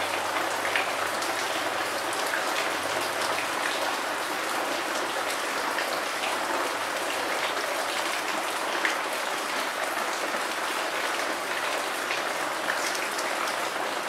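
Steady rain falling, an even hiss, with a few single drops tapping close by.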